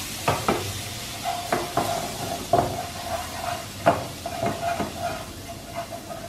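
Minced garlic sizzling in a little hot oil in a frying pan while a utensil stirs it, tapping and scraping against the pan several times. A faint steady tone runs underneath from about a second in.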